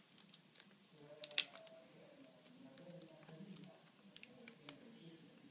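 Faint scattered clicks and taps of fingers handling a laptop screen's flex-cable connector and panel edge, with a couple of sharper clicks about a second and a half in.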